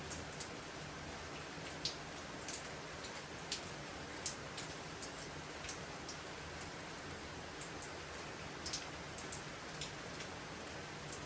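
Steady storm rain: an even hiss with irregular sharp drips tapping, roughly one a second.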